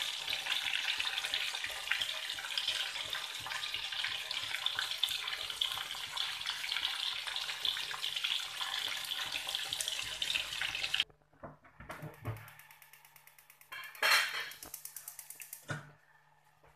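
Coated fish pieces frying in hot oil in a wok: a steady sizzling crackle with many tiny pops. The sizzle cuts off abruptly about two-thirds of the way through. After that come a few faint knocks and one brief louder noise.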